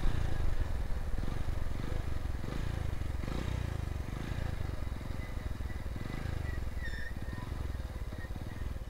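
Motorcycle engine running steadily on the move, mixed with wind buffeting the phone's microphone as a low rumble.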